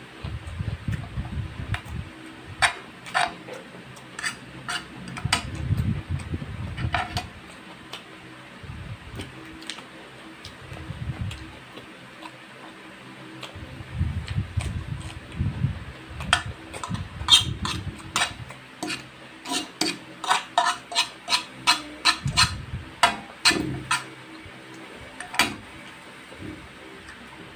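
Close-up mukbang eating sounds from instant pancit canton noodles and cucumber slices: chewing with many sharp mouth smacks and clicks, coming in clusters and densest in the second half.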